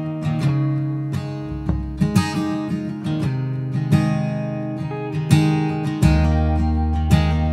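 Background music: acoustic guitar chords strummed roughly once a second, with a low bass part coming in about six seconds in.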